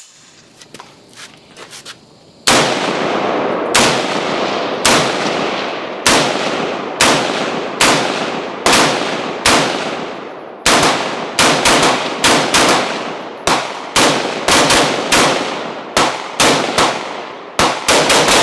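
Gun firing repeatedly. After a couple of seconds of quiet, single shots come about a second apart, each with a ringing tail. From a little past halfway the shots come in quick strings, several a second.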